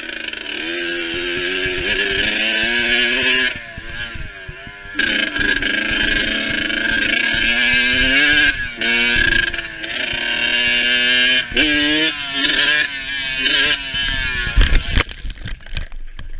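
Yamaha dirt bike engine revving hard, rising and falling in pitch as it is ridden along a dirt track, with the throttle shut off for about a second a few seconds in and briefly twice more. Near the end come a few heavy thuds as the bike goes down.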